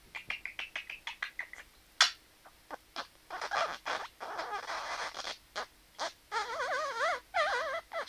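Budgerigar at a hand mirror: a quick run of clicks, then a single sharp tap about two seconds in as its beak strikes the mirror, followed by chattering and, near the end, a warble that wavers rapidly up and down in pitch.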